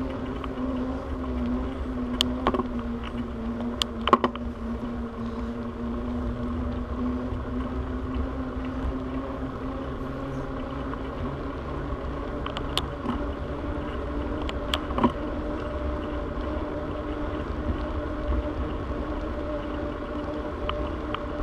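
A bicycle rolling along an asphalt trail: steady road rumble and wind on the mounted camera, with a hum that dips slightly in pitch and then rises again. A few sharp clicks and rattles come from the bike, mostly in the first few seconds and again around the middle.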